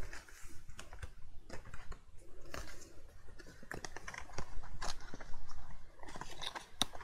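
Paper and cardstock being handled: sheets rustling, then a folded card box being worked by hand, with scattered light clicks and taps.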